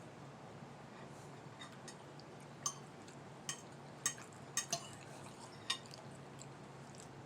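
Cutlery clinking against a plate while eating: about six sharp clinks in a cluster from a couple of seconds in, over a faint steady low hum.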